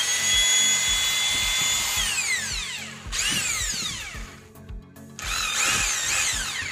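Bosch GBH 2-18E rotary hammer test-run free in the air: the motor speeds up to a steady high whine for about two seconds and winds down. A short burst about three seconds in spins down again, and near the end the trigger is feathered so the pitch rises and falls before it runs down.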